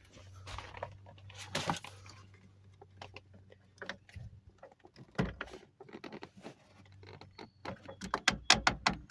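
Scattered clicks and knocks of hand work on a minivan sliding door's cable tensioner as it is turned counterclockwise to slacken the door cable. There is a scrape about a second and a half in, and a quick run of sharp clicks near the end.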